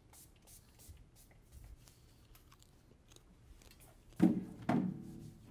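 Faint small clicks and mouth sounds of a priest receiving the communion host close to the altar microphone, then two short, louder sounds about half a second apart near the end.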